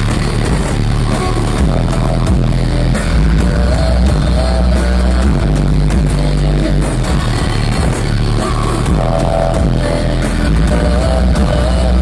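Live rock band playing loud with drums and heavy bass, and a voice singing over it through the PA; the full band comes in abruptly right at the start.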